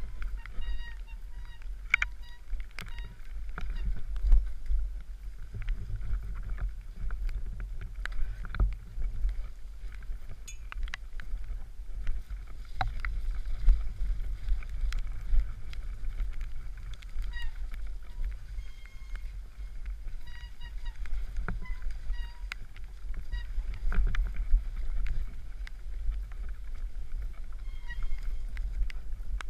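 Mountain bike rattling and clattering over a rough, leafy forest trail at speed, under heavy wind rumble on a chest-mounted camera's microphone. Short runs of a high-pitched whine cut in now and then, near the start and again in the last third.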